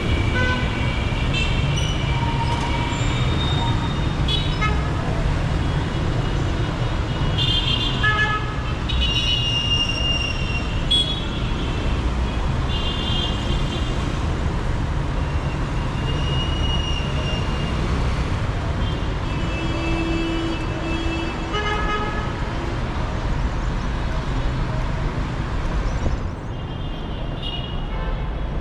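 Busy city traffic with a steady engine rumble and frequent short car and motorbike horn honks, several overlapping at once, with a few longer held toots.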